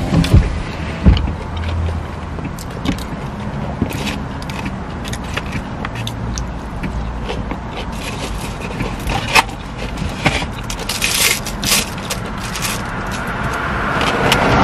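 Crisp crunches and chewing of a deep-fried Vietnamese imperial roll, a scatter of sharp crunches, over a steady low rumble of street traffic. There are a couple of knocks in the first second, and the traffic noise swells near the end.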